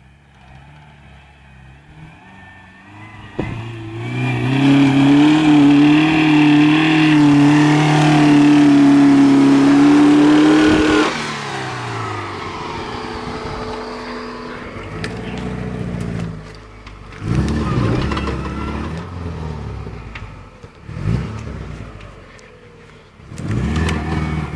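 Subaru EJ22 flat-four engine revving high and holding a slowly rising pitch for several seconds, then dropping off sharply and revving up and down in shorter bursts.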